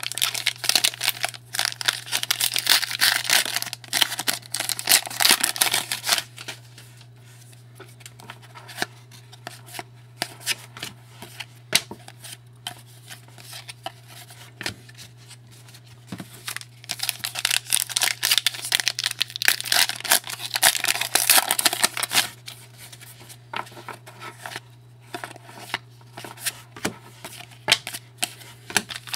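Hockey card pack wrappers being torn open and crinkled in two long stretches, with quieter clicks of cards being handled in between. A steady low hum runs underneath.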